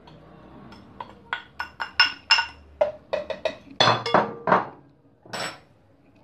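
A metal spoon clinking and tapping against a glass cup and a plastic blender jar, knocking sugar off: an irregular run of about a dozen sharp clinks with a short ring, starting about a second in and stopping before the end.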